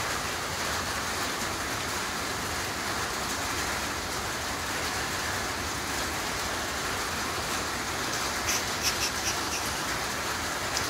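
A steady, even hiss, with a few faint short clicks about eight and a half to ten seconds in.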